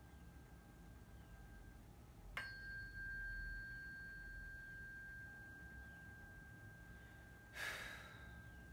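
Hand-held tuning fork ringing with a single steady high tone. It is struck again about two and a half seconds in, rings out strongly and slowly fades. A short rustling noise comes near the end.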